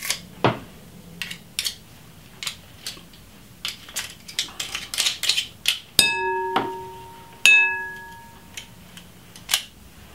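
Metal garlic press and spoon clicking and scraping as crushed garlic is worked out of the press. Around the middle come two sharp taps about a second and a half apart, each ringing on for a moment.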